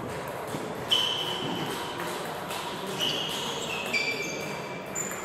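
Table tennis rally: the celluloid-type ball ticking sharply off the bats and table, each hit ringing briefly, about once a second, the loudest about a second in, over the steady hubbub of a large sports hall.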